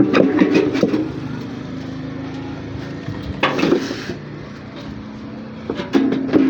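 Washing machine motor running with a steady hum, broken by bursts of rattling knocks about every three seconds.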